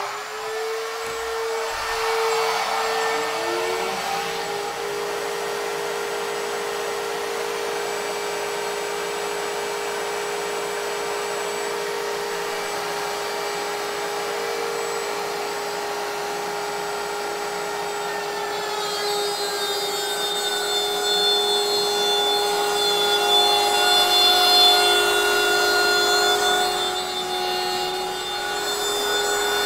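CNC router table's router spindle running at full speed with a steady high whine, joined in the first few seconds by a dust collector spinning up, its whine rising to a steady pitch. From about 19 seconds in the router bit cuts into the plywood workpiece, adding higher, shifting cutting tones and growing louder.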